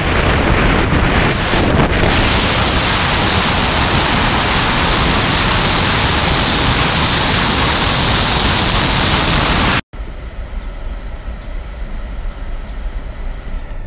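Wind rushing over the microphone of a camera mounted outside a camper van at highway speed, a loud, steady roar of noise. After a cut about ten seconds in, it gives way to the quieter, steady drone of the van's engine and road noise heard inside the cab.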